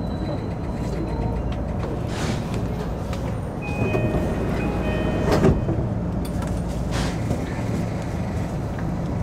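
Nanbu Line electric commuter train with a steady low rumble, brief high beeps near the middle and one sharp knock about five and a half seconds in.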